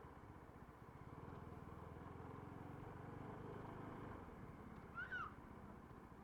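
Motorcycle engine running faintly and steadily, muffled, with a brief high chirp that rises and falls about five seconds in.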